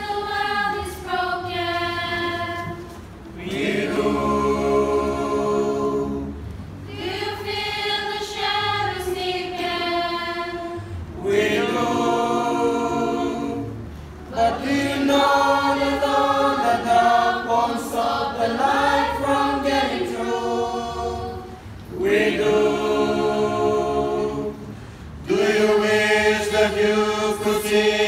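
Mixed choir of men's and women's voices singing a hymn in harmony, in sustained phrases a few seconds long with short breaks between them.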